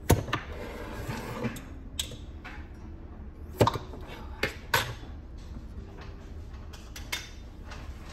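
Glass canning jars of home-canned soup being handled and opened: several sharp clinks and knocks of glass and metal lids at irregular intervals, the loudest about three and a half seconds in.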